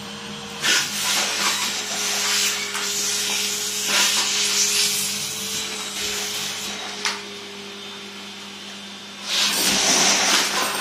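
Vacuum cleaner running with a steady hum while its metal wand sucks up small scattered bits from a carpet; the bits rattle and crunch up the metal tube in bursts, about a second in for several seconds, briefly near seven seconds, and again loudly from about nine seconds on.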